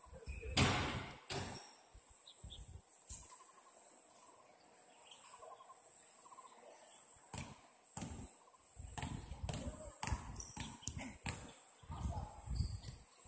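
Soccer ball being kicked on an outdoor pitch: a few sharp thuds, the loudest about half a second in, with players shouting in the distance. A low rumbling noise runs through the second half.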